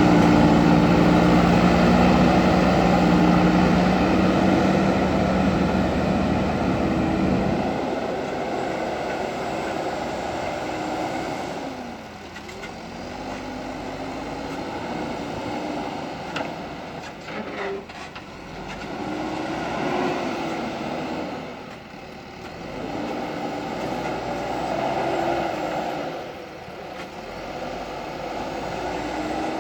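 JCB backhoe loader's diesel engine running as it works. It is loud and steady for the first seven or eight seconds, then quieter, its note rising and falling with the work, with a few sharp knocks around the middle.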